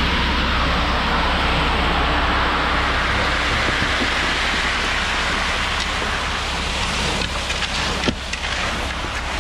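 Concrete mixer truck running with its drum turning as wet concrete pours down the chute: a steady rushing hiss over the engine's low hum, with a few knocks near the end.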